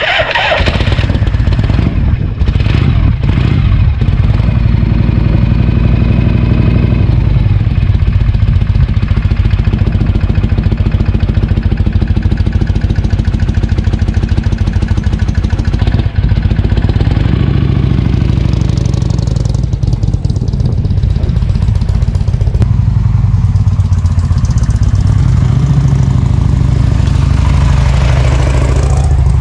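Harley-Davidson Shovelhead FLH's air-cooled V-twin engine running loud and steady, its pitch rising and falling a few times as the throttle changes.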